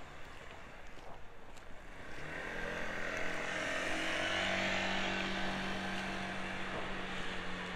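A motor vehicle passing close by: its engine and tyre noise build up about two seconds in, peak midway, then fade toward the end.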